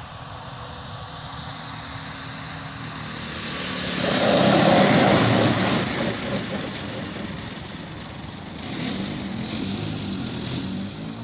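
Radio-controlled model airplane's engine running as the plane makes a low pass, growing louder to a peak about four to six seconds in, then fading and rising again near the end.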